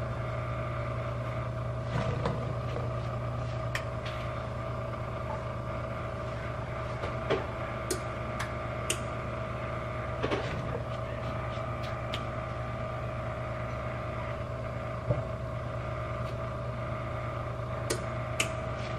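A steady low hum with a couple of held tones, with scattered light taps and clicks as diced carrots are tipped into a pot on the stove.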